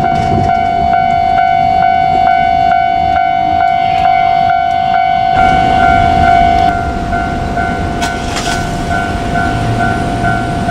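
Japanese level-crossing warning bell ringing steadily at just over two strokes a second, over the running rumble of KiHa 47 diesel railcars; the train noise shifts about halfway through, with two short clanks a little later.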